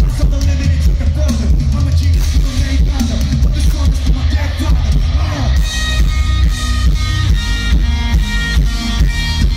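Live rock music played loud through arena speakers, with heavy bass throughout. About six seconds in, an electric guitar begins a repeating picked riff.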